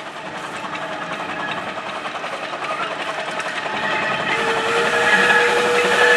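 Narrow-gauge steam locomotive approaching with a passenger train, its running and steam exhaust growing louder, then sounding its steam whistle in one steady note held for about two seconds from about four seconds in.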